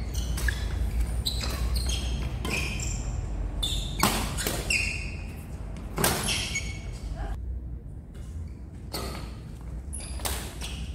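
Badminton rackets striking a shuttlecock in a doubles rally, sharp echoing hits about once a second with a short lull about two-thirds through, along with brief squeaks of shoes on the court floor. A steady low hum runs underneath.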